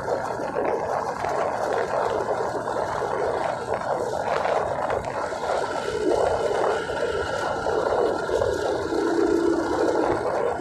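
Steady noise of a vehicle on the move, road and engine sound without let-up, with a steady hum joining in near the end.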